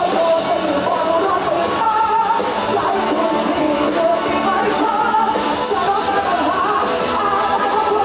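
A woman singing live into a handheld microphone over band accompaniment, amplified through the stage sound system.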